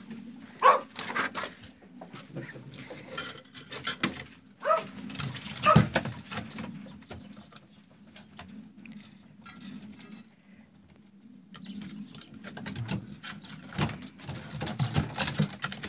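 Rabbits moving on the wooden floor of a hutch: scattered shuffling, scrapes and knocks, louder in the first six seconds.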